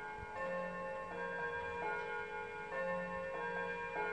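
German wall clock playing a chime melody, its notes struck one after another every second or less and ringing on into each other.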